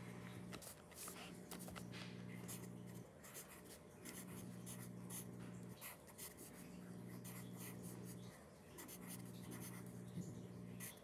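Wooden graphite pencil writing on lined spiral-notebook paper: a run of short, faint scratching strokes. Under it, a low hum comes and goes every couple of seconds.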